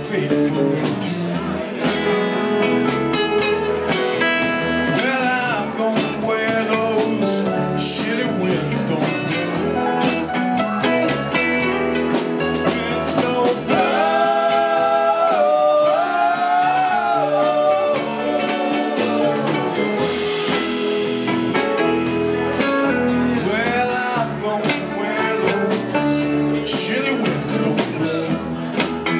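Live rock band playing a song: electric guitars, keyboard and drum kit together with a steady beat.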